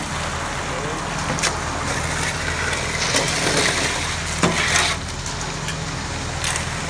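Ready-mix concrete truck's engine running steadily as wet concrete slides down the steel chute and slops into the forms. A gritty rushing swells between about three and five seconds in, and a few sharp knocks are heard.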